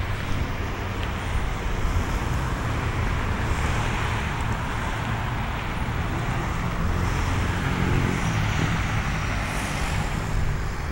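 Multi-lane road traffic: a steady rush of tyres and engines from passing cars and buses, with a heavy low rumble.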